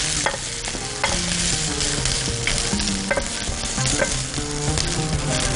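Breaded chicken pieces and zucchini sizzling in hot oil in a non-stick frying pan, stirred with a wooden spatula that scrapes and clicks against the pan every so often.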